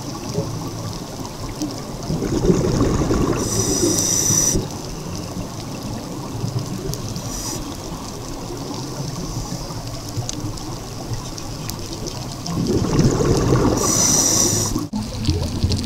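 Underwater sound of a scuba diver breathing through a regulator: two stretches of exhaled bubbles, one starting about two seconds in and one near the end, each lasting about two seconds, over a steady underwater rush.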